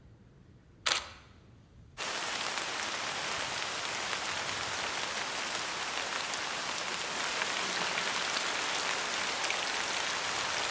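A single camera shutter click about a second in. Then, about two seconds in, steady rain starts abruptly and keeps falling, with small individual drop ticks through it.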